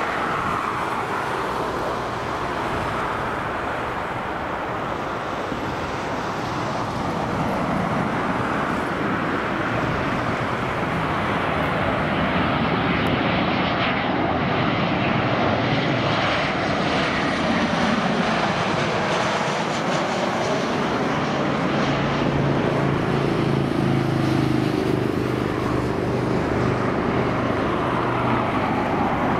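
Boeing 737-800 airliner's CFM56-7B jet engines on landing approach: a continuous jet rush that grows louder about a third of the way in as the plane passes, with a steady low hum added in the last several seconds as it comes down over the runway.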